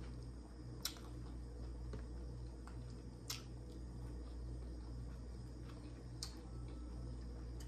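Quiet mouth sounds of someone eating, with four sharp clicks or smacks spread a couple of seconds apart over a steady low hum.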